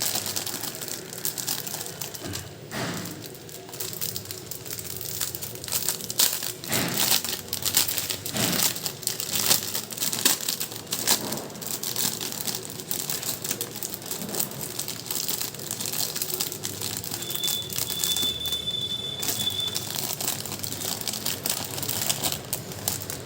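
Plastic packaging and small hard parts being handled: crinkling with many sharp clicks and taps, and a thin high tone for about two seconds late on.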